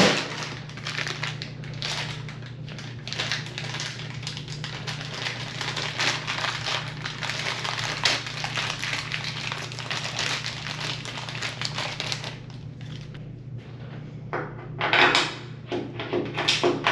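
Hand tools and metal parts on an Electrolux dryer's drum support roller mount: dense irregular clicking and scraping for about twelve seconds, then a few louder clattery knocks near the end, over a low steady hum.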